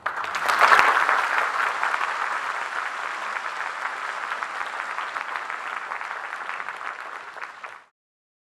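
Concert audience applauding at the end of a choral piece. The applause starts all at once, is loudest within the first second, eases off slowly, and is cut off abruptly near the end.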